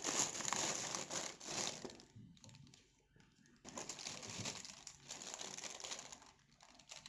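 A plastic food cover crinkling and rustling as it is handled and opened by hand, in two stretches with a quiet pause of about a second and a half between them.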